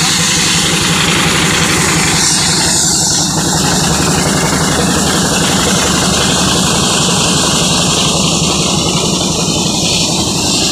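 An engine running steadily at idle with an even low pulse, under a constant broad hiss.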